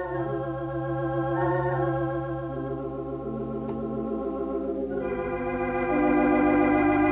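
Organ playing slow, sustained chords with a wavering vibrato; the chord changes about five seconds in and the music swells a little after.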